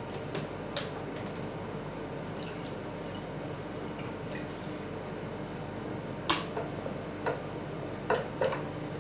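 Water poured from a small plastic bottle into narrow glass tubes, trickling and dripping over a steady low hum. A few sharp clicks of plastic and glass being handled, the loudest about six seconds in and two close together near the end.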